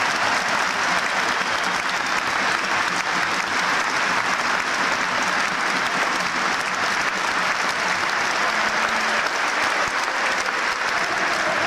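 A crowd applauding steadily, without a break.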